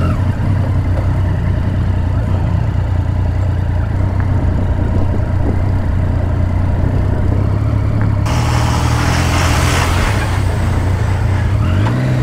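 Triumph Street Triple 675's inline-three engine with an Arrow aftermarket exhaust, running steadily at low revs while the motorcycle is ridden slowly over a rough dirt road. A hissing noise joins in about eight seconds in and fades shortly before the end.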